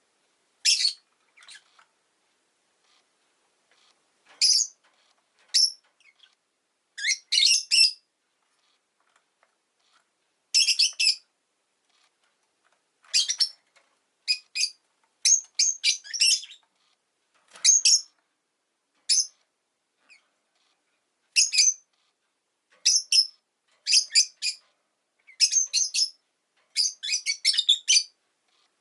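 Rosy-faced lovebird giving short, high-pitched chirps in clusters with silent gaps between them. The calls come more often in the second half.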